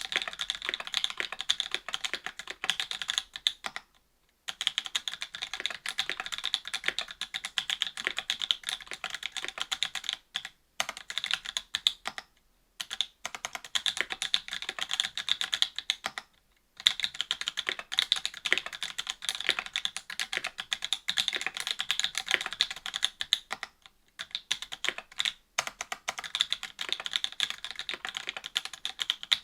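Fast typing on a Duck Orion V2.5 mechanical keyboard with stock NovelKeys BOX Cream linear switches, an FR-4 plate and GMK keycaps: dense runs of keystrokes broken by several brief pauses.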